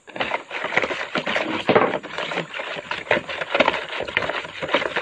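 Wire whisk stirring liquid in a plastic mixing bowl: a fast, uneven clatter of the wires against the bowl with the liquid swishing.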